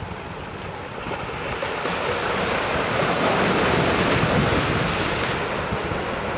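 Rushing wind on the microphone mixed with the wash of harbour water. It swells about a second in and eases near the end.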